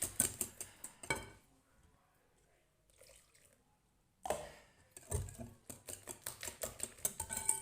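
Hand whisk beating eggs and sugar in a bowl, with quick clicking strokes against the bowl. The beating stops for a couple of seconds and starts again.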